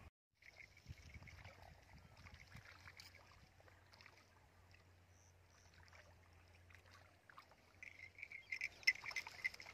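Faint open-air ambience: a low steady hum with scattered thin, high chirps, busier near the end.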